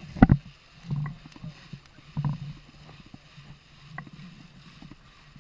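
Zipline gear being handled on a wooden launch deck: one sharp loud knock just after the start, then a few softer knocks and clunks about a second or so apart.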